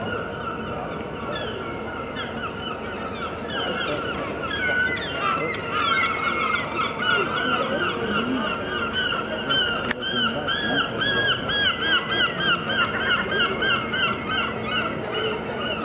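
Gulls calling, many overlapping harsh cries that build into a fast run of repeated calls, about three a second, over the last third.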